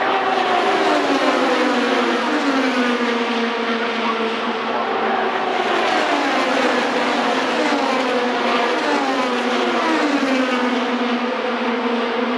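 IndyCar race cars with 2.2-litre twin-turbo V6 engines passing at speed one after another, each engine's high whine dropping in pitch as it goes by, with several passes overlapping into a continuous drone.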